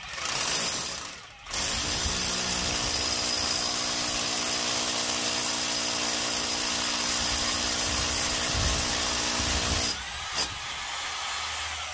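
DUSS rotary hammer drilling into a concrete wall. After a short opening burst and a brief stop, it runs steadily under load for about eight seconds, then drops to a lower level near the end.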